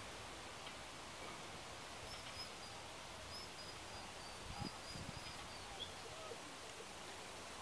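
Steady, quiet outdoor background noise in an open park, with a string of faint high chirps a couple of seconds in and a few soft low thumps about two-thirds of the way through.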